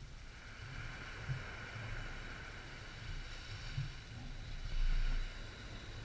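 Calm sea: a small wave washing up the beach and draining back as a soft hiss, which swells about half a second in and fades near the end. A brief low rumble comes about five seconds in and is the loudest moment.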